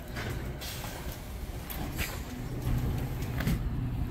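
Diesel locomotive of a Metra commuter train running steadily while the train stands at the platform, a low rumble that grows a little louder about two and a half seconds in. Several short, sharp hisses of air sound over it.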